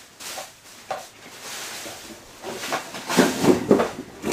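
Rummaging: items handled with a few light clicks and rustling, then a quick run of loud knocks and clatters about three seconds in.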